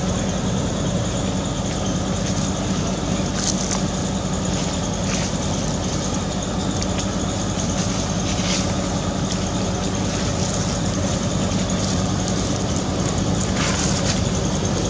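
A steady, unbroken low motor hum, with a few brief faint high-pitched sounds over it.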